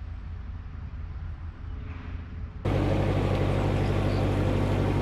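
Narrowboat diesel engine running steadily, a low even hum. About two and a half seconds in it jumps abruptly to a louder, closer sound.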